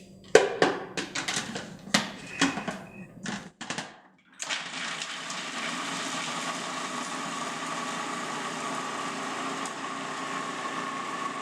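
A few sharp knocks and clicks, then about four seconds in a food processor with an S blade starts and runs steadily, chopping a load of Brazil nuts, onion, lemon and garlic into a thick nut-cheese paste.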